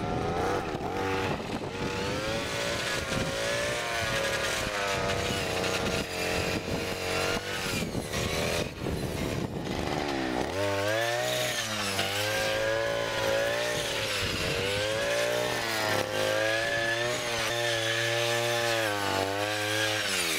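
Petrol two-stroke brush cutter with a metal cutting disc running at high revs while mowing dense, tall grass, its engine note rising and falling as the blade meets the grass.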